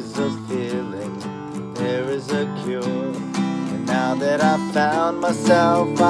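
Acoustic guitar strummed in a steady rhythm, with a man singing a wordless or unclear melody over it.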